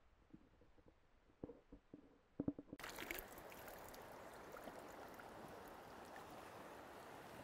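Muffled underwater sound with a few dull knocks, then, just under three seconds in, an abrupt switch to the steady rushing of river current.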